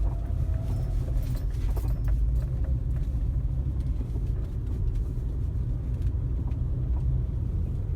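Steady low rumble of a car's engine and road noise heard from inside the moving car, with a few light clicks or rattles in the first couple of seconds.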